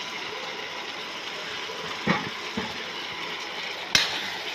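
Raw chicken pieces being dropped into a pot of simmering masala and potatoes: two soft plops about two seconds in and a sharp click near the end, over a steady hiss.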